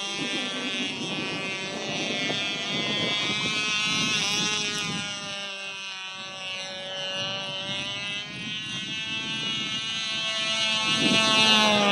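Cox Babe Bee 0.8 cc two-stroke glow engine on a radio-controlled model plane, running flat out in flight with a high-pitched buzzing whine. Its pitch bends as the plane swoops past, about four seconds in and again near the end, and it grows fainter in the middle as the plane flies farther off.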